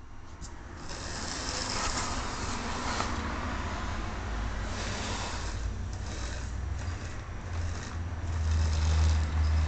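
Model train running on sectional track: an electric motor whirring with wheels rumbling on the rails, growing louder near the end as the train comes closer.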